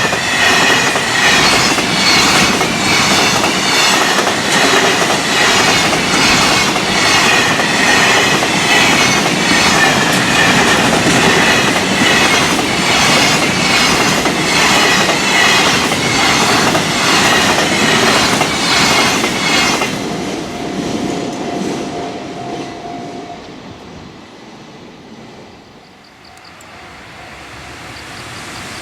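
Freight train wagons running at speed over rail joints close by: a loud, evenly repeating clatter of wheels striking the joints, with a high steady ring over it. About twenty seconds in the last wagon passes and the clatter drops away quickly to a faint rumble, which swells again near the end.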